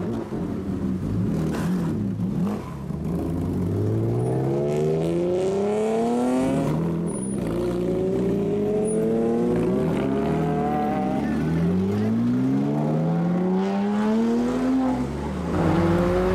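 Lowered, modified sports cars, a widebody BMW M3 and a Porsche Cayman among them, pulling away one after another, their engines revving up in pitch several times as they accelerate off.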